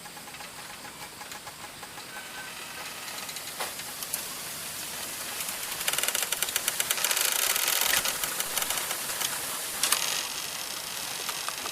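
Bamboo stalks creaking and clicking against each other, a rapid crackling rattle that grows louder, thickest from about halfway through.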